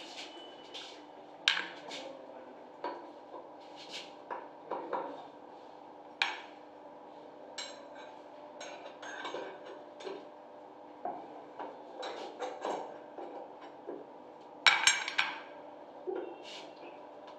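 Small metal tools clinking and scraping against a brass concealed shower valve in the wall: scattered sharp clicks and taps, with a louder cluster of clinks about fifteen seconds in.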